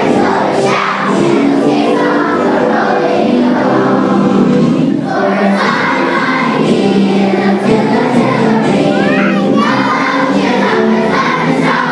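A large group of schoolchildren singing together as a choir.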